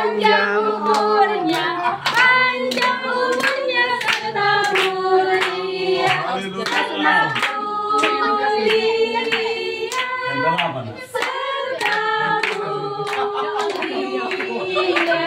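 A small group of people singing a birthday song together, clapping their hands along in time.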